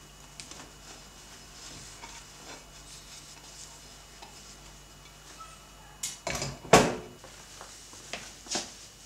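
A plate being rubbed dry with a cloth, faintly, then about six seconds in a quick run of sharp dish clatters, the loudest just before the seventh second. A single knock follows about a second and a half later.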